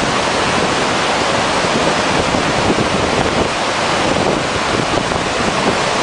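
Steady, loud rush of a large waterfall and the river pouring over its lip, with wind noise on the microphone.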